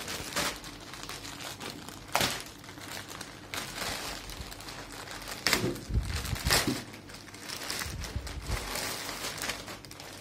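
Plastic mailing bag crinkling and rustling as it is handled and opened by hand, with a few sharper crackles along the way.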